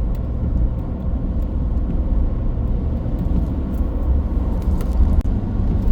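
Steady low engine and road rumble of a truck heard from inside the cab, with a few faint ticks.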